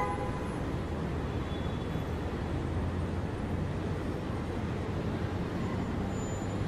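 Steady street traffic noise: an even hum and low rumble of road traffic.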